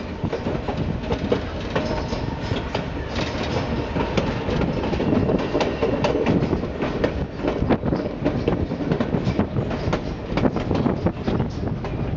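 White Pass & Yukon Route narrow-gauge train running, its wheels clattering on the rails with frequent irregular clicks and knocks over a steady rumble.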